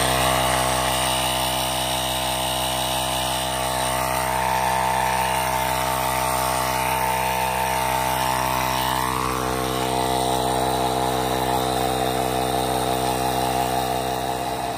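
Portable electric tyre inflator's small piston compressor running steadily, pumping air through its hose into a deflated car tyre.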